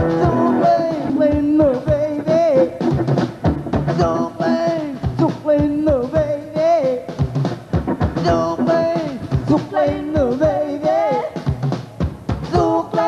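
Live band music: a drum kit keeping a steady beat under a man singing the melody.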